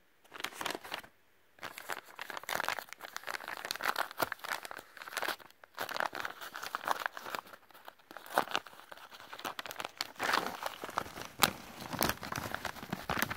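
Paper mailing envelope being handled and torn open by hand: irregular crinkling, crackling and tearing of paper, with a couple of short pauses.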